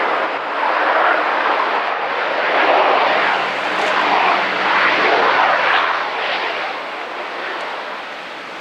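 ATR 72-500 twin-turboprop running its engines and propellers at high power as it rolls along the runway, a steady loud roar that fades over the last couple of seconds as the aircraft moves away.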